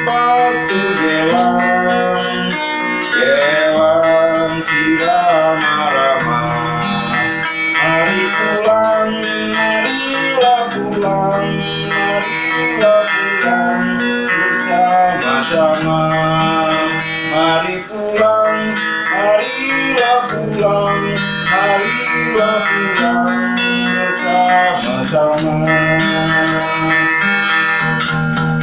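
Acoustic-electric guitar played through a small battery-powered mini amplifier fitted with a replacement speaker to cure the original's cracked, buzzy tone, with distortion on and the bass turned down. It plays a continuous melody over chords, with many notes bending in pitch.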